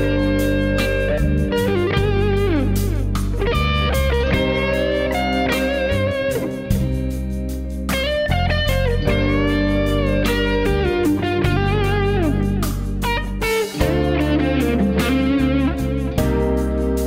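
Minor-blues lead on a PRS CE24 electric guitar played through a Line 6 POD 2 amp modeller, with string bends and vibrato on held notes. It runs over a steady backing track with bass notes and regular drum hits.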